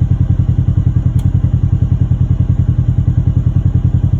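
Polaris Ranger UTV engine idling, a steady, evenly pulsing low beat, with a light click about a second in.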